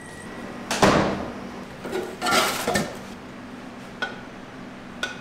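Hand screen printing: a sharp clatter of the hinged aluminium screen frame and clamps about a second in, then a squeegee scraping across the inked mesh for about a second, then two light clicks.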